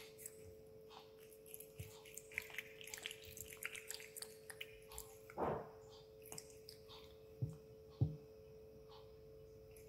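Cat lapping water from a stainless steel bowl: quick, faint wet ticks and drips, with two louder knocks half a second apart late on, over a steady hum.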